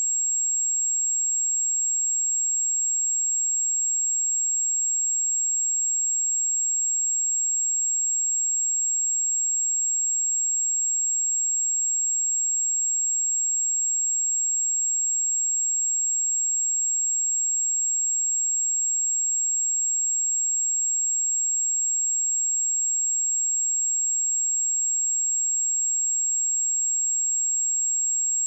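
A single pure 7588 Hz sine-wave test tone, a steady high-pitched whistle held at an unchanging level.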